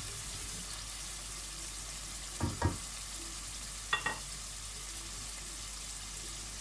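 Chana dal in tomato and spice gravy simmering in a pot: a steady soft hiss, broken by a few brief knocks about two and a half and four seconds in.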